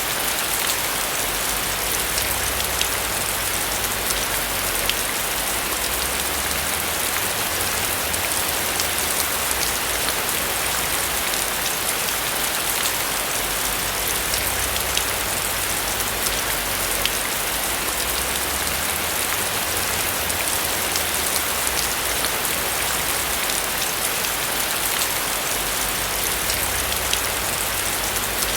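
Steady rain falling on a roof, an even hiss with scattered sharp drop ticks over a low rumble.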